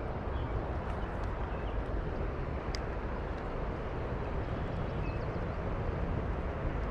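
Steady rushing of a fast-flowing creek running high after heavy rain, with a faint click about three seconds in.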